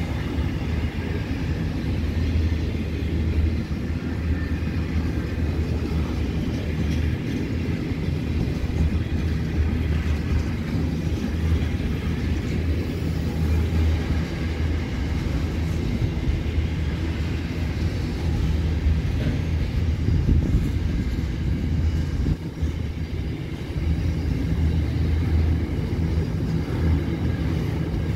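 Freight train wagons rolling past on the track: a steady, continuous rumble of steel wheels on rail.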